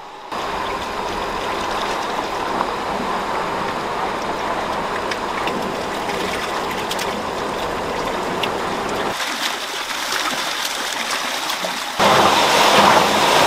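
Water rushing and splashing in an eel-farm tank, a steady noise that turns louder and harsher near the end.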